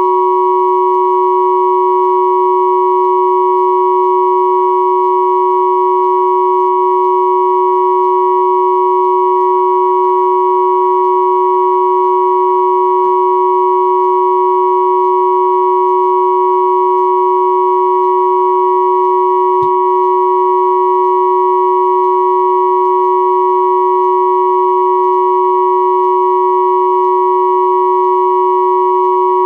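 Three pure sine tones at 369, 963 and 1111 Hz sounding together as one steady, unchanging chord-like hum, the low 369 Hz tone and the close pair near 1 kHz the loudest, with the two high tones beating slightly against each other.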